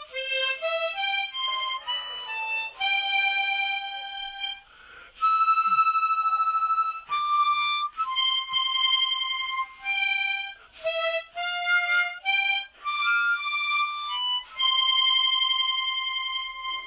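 Solo harmonica playing a slow melody, one note at a time, with a few long held notes.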